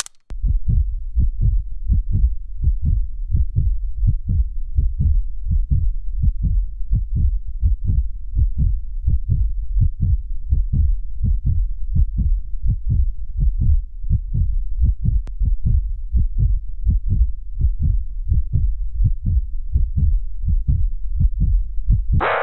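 Heartbeat sound effect: fast, low thumps about three a second over a steady low rumble.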